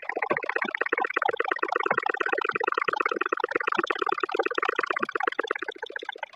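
Household sewing machine stitching a test seam in a fast, even clatter of needle strokes. It slows and stops near the end.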